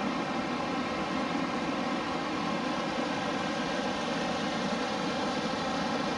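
Steady rush of a mountain stream cascading down between rocks.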